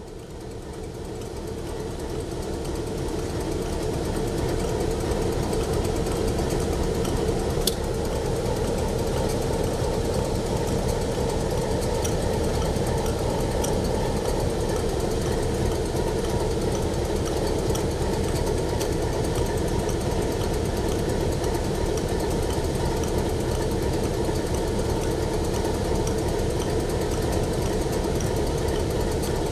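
Diesel locomotive engine idling steadily, fading in over the first few seconds.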